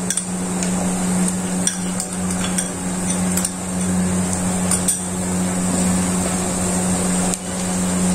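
Sliced onions sizzling in hot oil in a pot while a wooden spoon scrapes ginger-garlic paste out of a glass bowl and stirs it in, with scattered knocks of spoon against bowl and pot. A steady low hum runs underneath.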